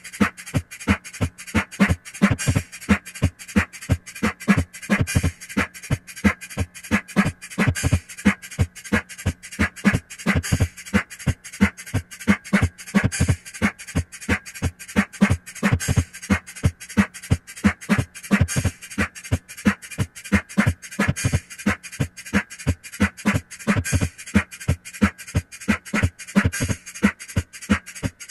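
Rhythmic percussive soundtrack: an even pattern of sharp clicks and low thumps, about four a second, over a faint steady low hum.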